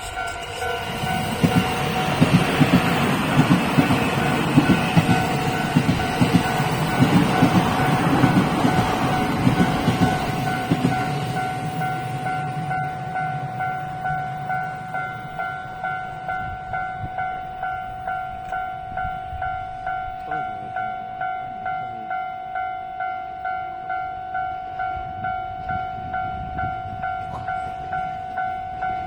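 A train passes over a Japanese railway level crossing: a loud rumble with wheels clacking over the rail joints for about the first ten seconds, then fading away. Throughout, the crossing's electronic warning bell dings steadily, about three dings every two seconds, and keeps ringing after the train has gone.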